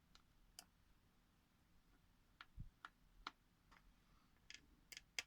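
Faint, scattered small clicks and ticks of a precision Phillips screwdriver working tiny screws out of a phone's internal frame, with one soft low thump about halfway through.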